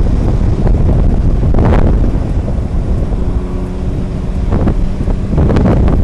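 Strong, gusty storm wind buffeting the microphone: a heavy low rush that surges in gusts, with a faint steady hum for a second or so near the middle.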